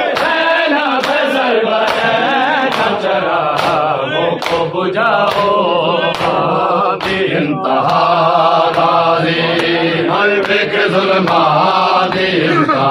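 Men's voices chanting a noha, a Shia lament, in unison with a crowd of mourners, crossed by regular sharp slaps of matam, hands beating on chests, that keep the beat. The voices break off briefly about seven and a half seconds in and a new line starts.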